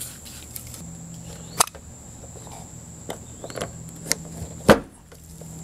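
Handheld rubber suction cup dent puller pressed onto a pickup truck's dented front fender and pulled, with several small clicks and one sharp, louder pop near the end as the dent pops partly out.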